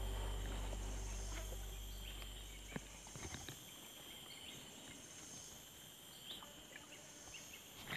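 Faint outdoor ambience of insects droning with steady high-pitched tones. A low hum fades out over the first three seconds, and a few faint clicks come about three seconds in.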